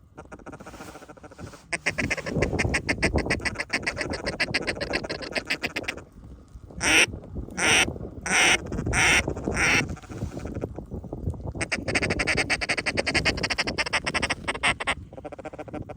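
Mallard duck call blown by a hunter: a fast chatter, then five loud separate quacks about a second in the middle, then fast chatter again, calling ducks in toward the decoys.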